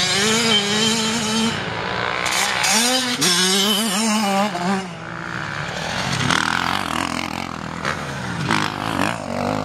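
Motocross dirt bike engines running hard on a dirt track, their note wavering and rising and falling as the riders work the throttle.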